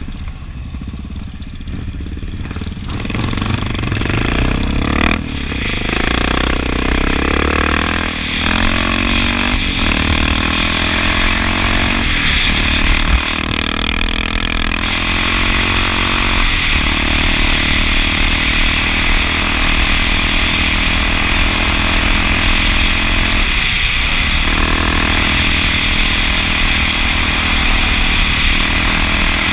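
Honda XR650L's single-cylinder four-stroke engine pulling through the gears, its pitch rising and breaking off at each of several gear changes, then running steadily at road speed. Heavy wind rush on the microphone runs throughout.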